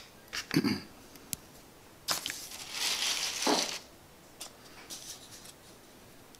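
Handling noises from a small plastic cup of scenery dirt on the workbench: a knock about half a second in, then about two seconds of rustling and scraping that ends in a thump.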